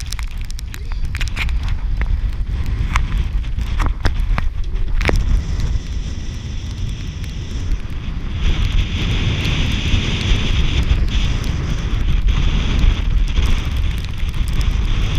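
Wind buffeting an action camera's microphone: a heavy low rumble with scattered crackles in the first few seconds. A brighter rushing hiss joins about halfway through.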